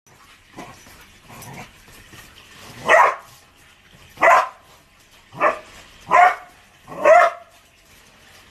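Border collie barking: five loud, short barks about a second apart, starting about three seconds in, after a few fainter sounds.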